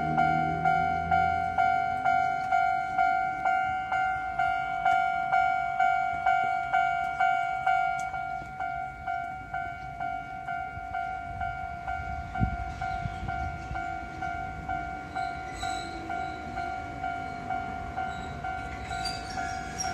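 Japanese level-crossing warning bell ringing, an electronic two-tone ding repeating at about three strikes every two seconds, as an Enoden train approaches the crossing. Near the end the train's own running noise swells as it draws close.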